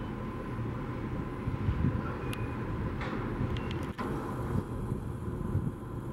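Steady low engine rumble of an idling vehicle, with a faint constant high whine and a few light clicks in the middle.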